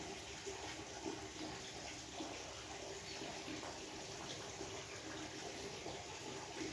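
A steady rushing noise like running water, with no clear beginning or end.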